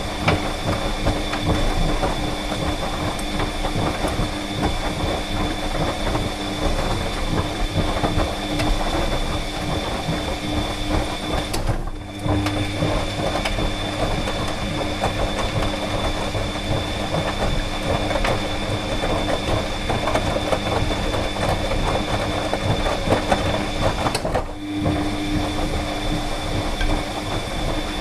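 Tumble dryer running: a steady hum and a high whine under a dense, continuous rattle of the tumbling drum. The sound drops briefly about twelve seconds in and again near the end, then carries on.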